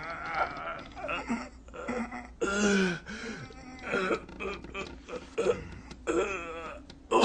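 Men's short grunts and strained vocal noises of exertion from a hand-to-hand fight, several in a row with pauses between them.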